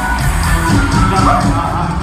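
Live regional Mexican band music with brass and drums, playing steadily with a beat through the arena's sound system, heard from the audience.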